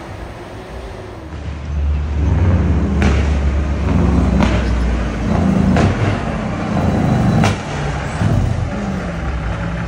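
Road traffic passing close by, led by a heavy diesel tractor-trailer engine pulling around a bend with a deep steady drone that swells about a second and a half in. Several short sharp clicks sound over it.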